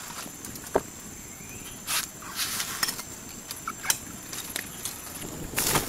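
Rustling and light knocks as leaves and sticks are handled on rocky ground, with scattered clicks and a louder burst of rustling near the end.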